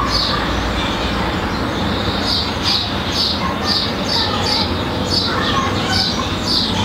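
A small bird chirping over and over, short high chirps about twice a second, over a steady background hiss of outdoor noise.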